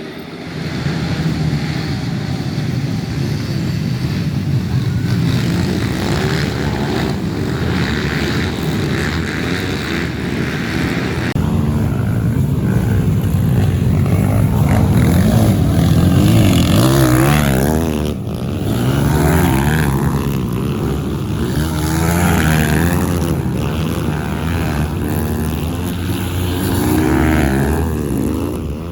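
Trail motorcycle engines racing on a dirt circuit, an SND190-engined bike and a bored-up Kawasaki KLX among them. They rev up and down over and over, the pitch rising and falling as they accelerate and back off, with two or more engines often heard at once.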